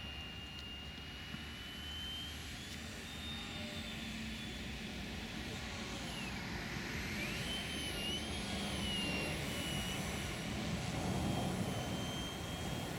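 Aeroworks Su-31 radio-controlled aerobatic model plane in flight, its motor and propeller giving a thin high whine. The whine swoops down and back up in pitch about six to nine seconds in as the plane manoeuvres, and grows slowly louder.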